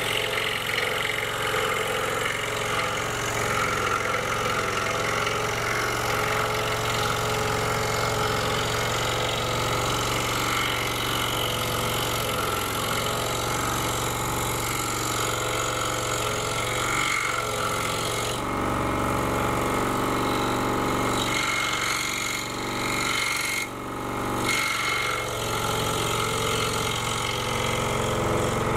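Scroll saw running steadily, its blade cutting a small basswood blank along a pattern line, with two brief dips in level a few seconds before the end.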